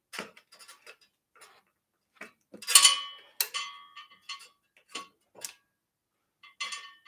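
Sharp metallic clicks and clinks, several with a brief ring, as an e-bike's front wheel axle is worked into the fork dropouts by hand; the loudest knocks come about three seconds in.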